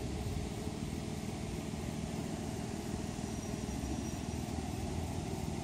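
Steady low rumbling background noise with no break, with a faint thin high tone for about a second around the middle.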